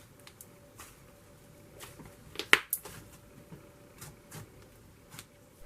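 Hands playing with slime: scattered soft clicks and crackles, with one louder crackle about two and a half seconds in.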